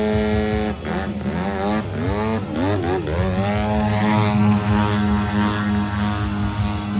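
Aerobatic RC airplane's gas engine and propeller running. About a second in, the pitch swings rapidly up and down several times for about two seconds as the plane manoeuvres, then holds a steady note.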